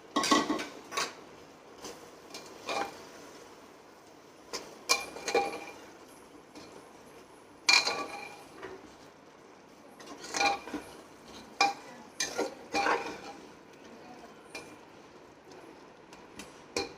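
A metal spoon clinking and scraping against a cooking pot in irregular knocks, as mushrooms are stirred into a thick masala.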